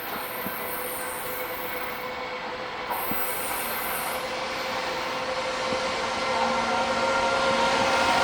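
A train approaching, its running noise growing steadily louder, with a steady high-pitched whine held over the rumble.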